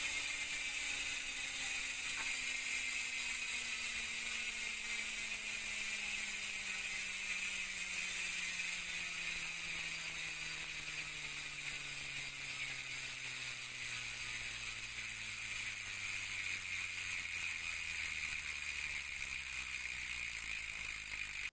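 Koozer XM490 six-pawl freehub on a mountain-bike rear wheel spinning freely, the pawls giving a continuous fast ratcheting buzz. The buzz slowly drops in pitch as the wheel loses speed.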